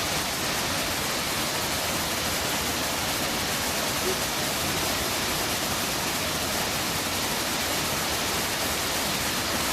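Steady, even rush of falling water from the Ouzoud waterfalls.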